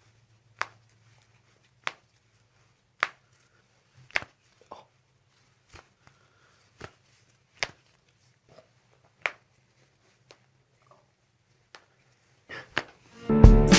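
A series of short, sharp clicks or knocks, about a dozen at uneven spacing of roughly a second, over a faint steady hum. Music with drums comes in near the end.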